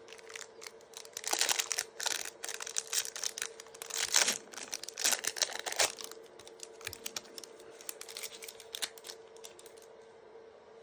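Topps trading cards and their pack being handled: a rapid run of crinkles and clicks, busiest in the first six seconds and thinning out after.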